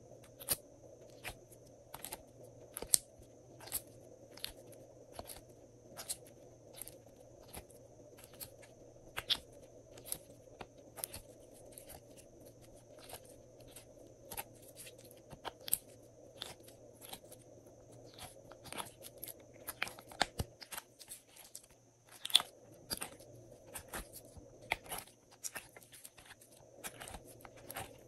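Glossy slime being squeezed and worked by hand, giving sharp, irregular clicks and pops, about one or two a second, more crowded in the second half.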